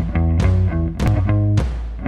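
Background music: an instrumental track of short, sharply struck chords over a steady beat.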